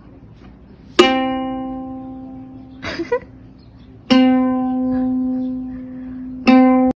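Ukulele strings plucked by a cat's paw, sounding three times about two or three seconds apart. Each pluck rings on and slowly fades, and the third is cut off sharply. A brief rustle comes between the first two.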